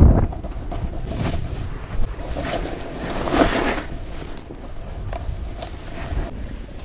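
Snowboard sliding through snow, its base hissing in a run of swishes as it turns, with a louder swish about halfway through. Low wind rumble on the microphone underneath.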